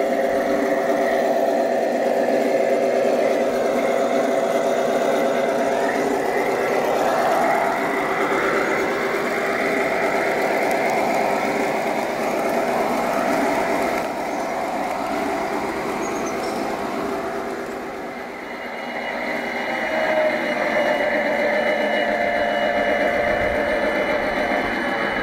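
ESU sound decoder in a gauge 1 model Nohab diesel locomotive playing the diesel engine's running sound through the model's small speaker, steady throughout with a brief dip in loudness about three-quarters of the way in.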